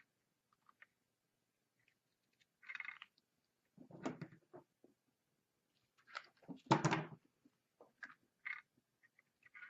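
Handling sounds at a soldering bench: a short scrape about three seconds in, then a few knocks of tools or the circuit board being moved and set down, the loudest one near the seven-second mark, with faint ticks in between.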